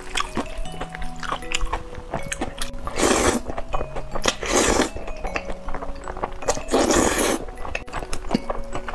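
A person loudly slurping noodles, three long slurps about three, four and a half and seven seconds in, with small clicks and chewing between them, over background music.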